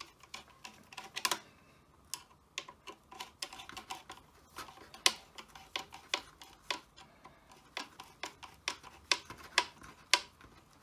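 Screwdriver tightening a hose clamp around a trim router's body in a plastic fixture: a run of sharp, irregular clicks and light knocks.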